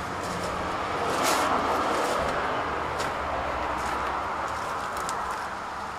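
A rushing noise that swells about a second in and slowly fades, with a few scattered crunches of footsteps on leaf litter and debris.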